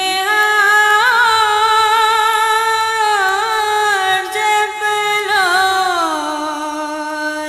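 A naat being sung: one voice holds a long melismatic line, its pitch wavering in ornaments around 1 and 3 seconds in, then gliding down to a lower note about six seconds in.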